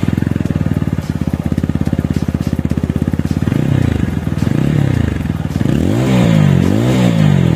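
TVS Apache RTR 160 4V's 159.7 cc single-cylinder four-stroke engine idling through its exhaust, then revved in about five short throttle blips from about three and a half seconds in, the last two the highest.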